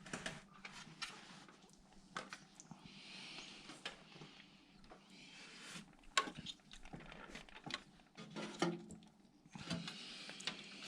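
A painted motherboard I/O shield being handled and pushed against a PC case's rear opening while it is test-fitted: scattered light clicks and taps, with a brief soft scraping about three seconds in and again near the end.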